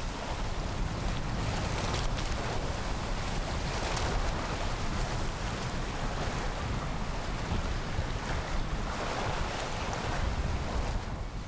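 Steady wind buffeting the microphone over the wash of sea water.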